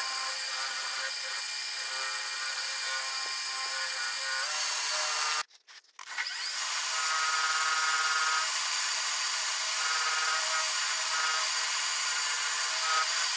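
Wood lathe running with a cloth pressed against a spinning resin-and-golf-ball blank: a steady rubbing hiss over the motor. The sound breaks off briefly about five and a half seconds in, then picks up again.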